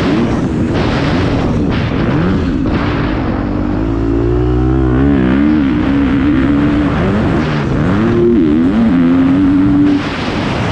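Motocross bike engine being ridden hard, its revs rising and falling over and over as the rider works the throttle and gears. The revs drop off about four seconds in, then build again.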